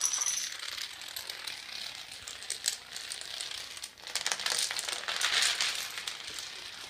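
A long chain of small toy dominoes toppling in turn on a hardwood floor: a continuous rapid clatter of tiny clicks that swells louder about four seconds in, where the chain reaches a dense cluster, then thins out near the end.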